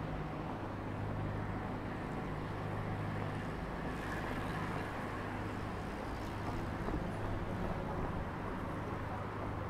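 A steady low engine hum over outdoor street noise.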